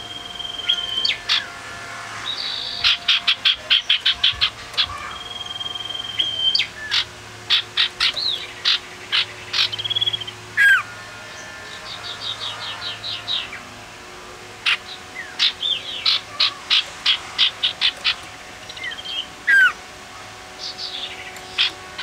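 Male common iora (cipoh) singing: long level whistles, quick runs of sharp chipping notes at about six a second, and a few down-slurred whistles.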